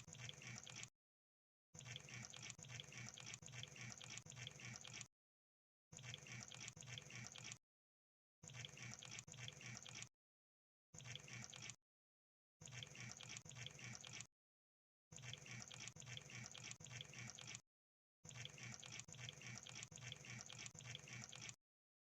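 Crab sound effect: a dense, wet crackling and clicking, like bubbling, played in about eight bursts of one to three seconds, each cut off abruptly into silence.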